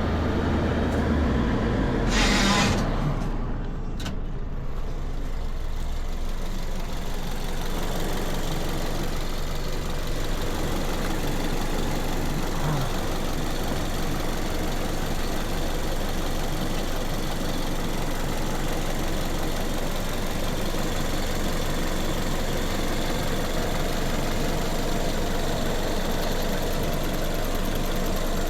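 A vehicle engine running steadily outdoors, with a brief louder burst of noise about two seconds in.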